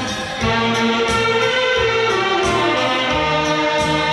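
Upbeat dance music with a steady beat and sustained melody lines.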